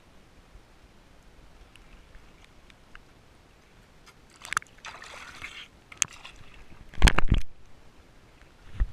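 Sea water sloshing and splashing at the surface against an action camera's waterproof housing, quiet at first, then a run of clicks and short splashes, with a loud deep double thump about seven seconds in and another near the end.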